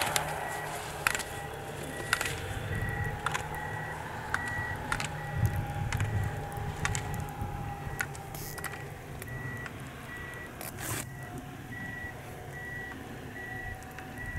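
A vehicle's reversing beeper beeping steadily, about two beeps a second, over a low engine rumble. Sharp clacks come about once a second, thinning out after the first nine seconds or so.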